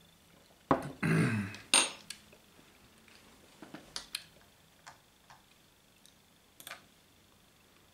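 A tea glass set down on a table: a knock and a sharp clink with a short ring in the first two seconds, followed by a few faint light clicks.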